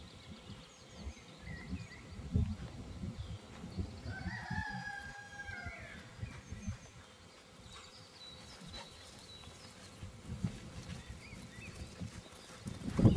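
A rooster crowing once: a call about a second and a half long, starting about four seconds in. Low thumps and rumble run under it.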